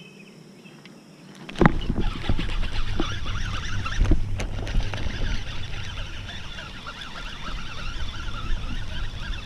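Baitcasting reel being cranked to bring a lure back in, its gears whirring close to the microphone with handling knocks. It starts abruptly about a second and a half in and runs on steadily.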